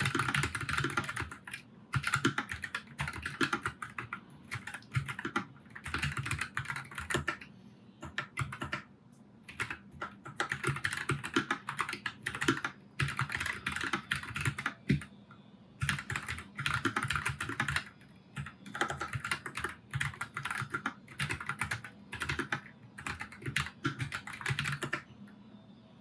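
Typing on a NuPhy Air96 low-profile mechanical keyboard with brown (tactile) switches: fast runs of key clacks with short pauses between them, stopping about a second before the end.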